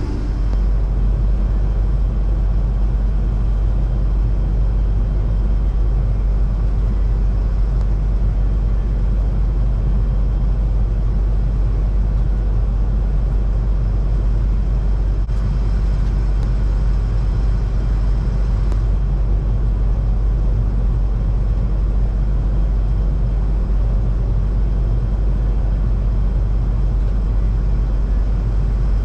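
Combine harvester running steadily through the field: a constant low rumble of engine and machinery that does not change.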